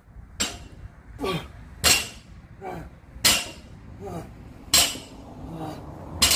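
A loaded barbell with rubber bumper plates hitting a concrete floor five times, about once every second and a half, as it is touched down between reps. Short falling grunts come between the touches.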